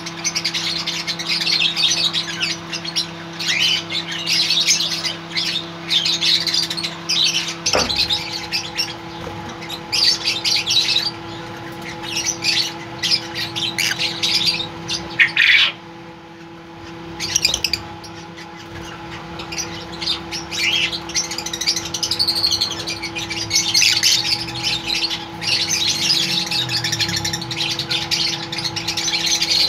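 Many lovebirds chirping and squawking in rapid, overlapping high-pitched calls, with a lull of about two seconds midway. A steady low hum runs underneath.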